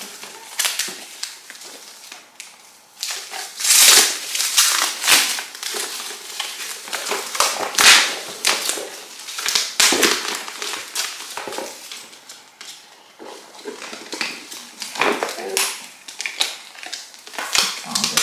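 Irregular rustling, crinkling and small clicks from a new handbag being handled with its wrapping and metal chain strap. The loudest bursts come about four, eight and ten seconds in.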